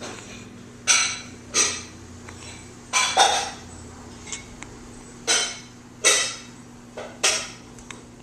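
Hiccups: a run of about eight short, sharp hics at irregular spacing, a couple of them in quick pairs.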